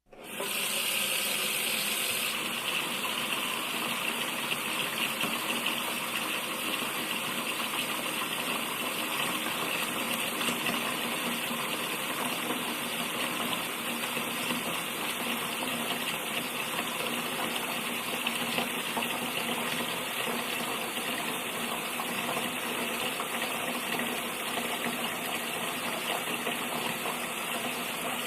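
Tap running steadily into a sink, water splashing and gushing into the basin as it fills. It starts abruptly right at the beginning.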